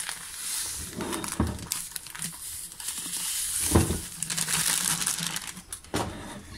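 Sugar pouring from a plastic bag into a glass jar of cornelian cherries: a steady hiss of granules over crinkling plastic, with one louder knock about four seconds in.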